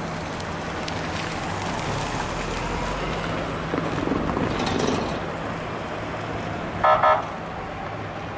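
Road traffic noise with a vehicle engine running, and a vehicle horn giving two short toots near the end.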